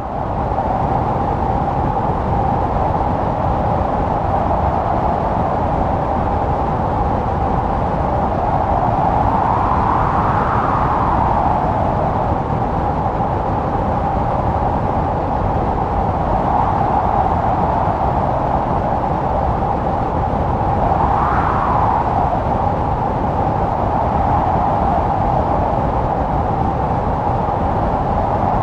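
Blizzard wind howling steadily, with a whistling tone that swells and rises in pitch as gusts come through, about a third of the way in and again past two-thirds.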